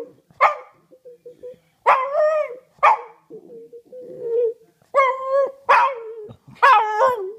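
A dog 'singing': a string of about six short barking howls that bend up and down in pitch, with a low, steady whine running between them.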